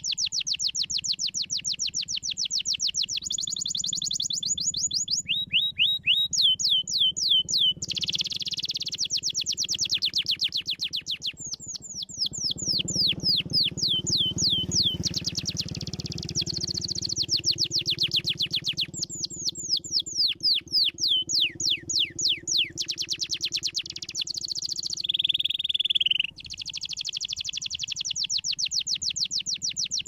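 Domestic canary singing a long, continuous song of rapid trills: runs of quick falling notes, about ten a second, each run lasting a few seconds before the song switches to a new run at a different pace.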